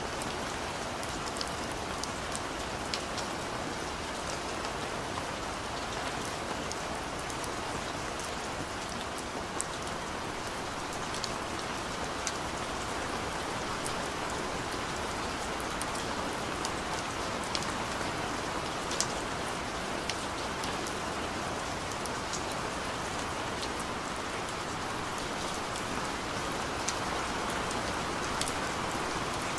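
Steady rain with scattered sharp drop ticks.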